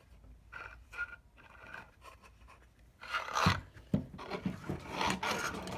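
Small clicks and light scraping from the burr adjustment of a vintage Zassenhaus manual conical burr coffee grinder, worked by hand to set the burrs just touching, with louder scraping about three seconds in and again near the end.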